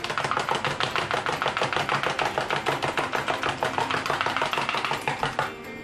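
A fork beating egg and a little water into an egg wash in a plastic tub: rapid, even clicking of the fork against the tub, stopping near the end.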